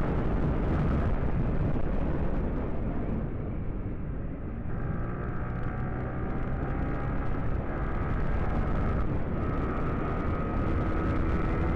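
Motorcycle engine accelerating, its pitch rising in steps with a couple of gear changes, over a steady low rush.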